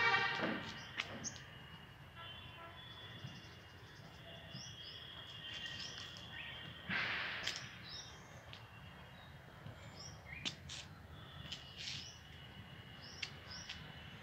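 Several small birds chirping and calling, with many short high chirps and thin held notes throughout and a louder, buzzy call at the very start. A brief rustling noise about seven seconds in.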